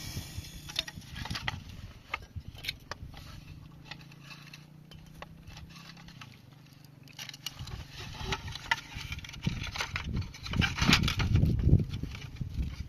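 Irregular clicks, knocks and rattles of hard parts being handled, over a low steady hum that stops about halfway through; the knocking grows louder and denser near the end.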